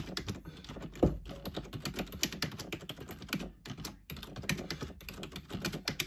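Typing on a £10 KBMS-001 USB keyboard: a quick, irregular stream of key clicks, with one louder knock about a second in and a brief pause a little past halfway.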